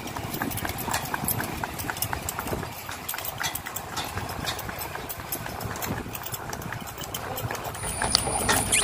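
Hooves of a horse pulling a two-wheeled cart clip-clopping on a paved road, with the cart rolling along. A steady high-pitched tone comes in near the end.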